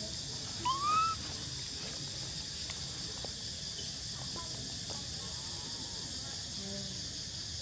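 A baby monkey gives one short rising squeal about a second in, over a steady high drone of insects.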